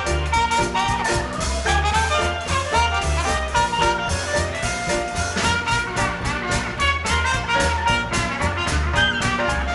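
Live swing band playing an instrumental passage with brass lead, walking bass and drums keeping a steady beat.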